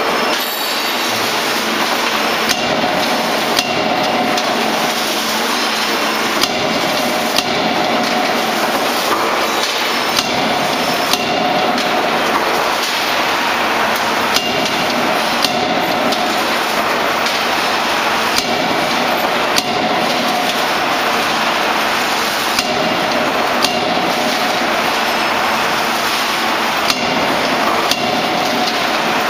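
CNC hydraulic die forging hammer (16 kJ) striking hot steel in its die: sharp metallic blows, irregularly every one to three seconds, over a constant loud machine noise.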